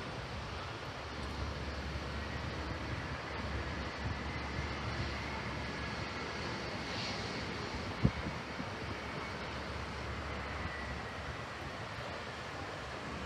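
Jet airliner passing, a steady engine rumble with a faint high whine that rises and falls slightly, easing off near the end. A single sharp knock about eight seconds in.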